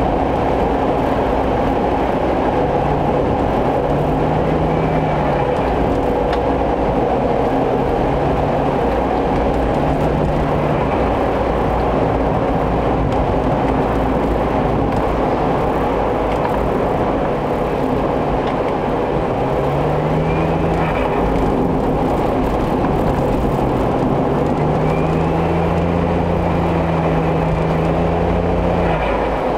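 Suzuki Every Wagon DA64W van driving, engine and road noise heard steadily, the engine note rising and falling with the throttle. A faint rising whistle comes in a couple of times in the second half.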